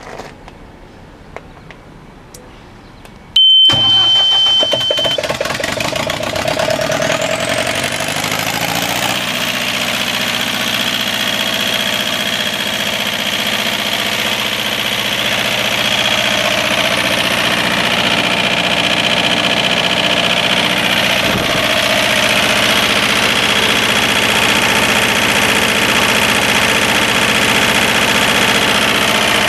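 John Deere 4024 turbocharged diesel engine of a 50 kW generator starting up abruptly about three and a half seconds in, after a few faint clicks. A short steady high tone sounds at start-up, then a high whine rises for several seconds as the engine comes up to speed and settles into steady running.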